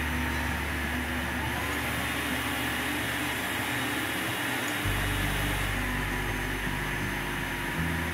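Food processor running steadily, its blade mincing cooked chicken, over background music with sustained low notes.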